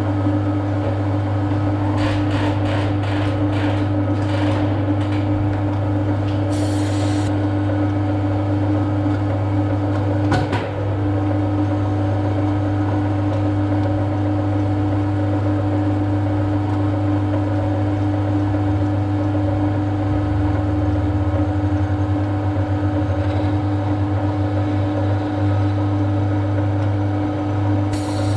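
Electric motor of a workshop machine tool running with a steady hum. A few light clicks and a short rasp come early on, and there is a single knock about ten seconds in.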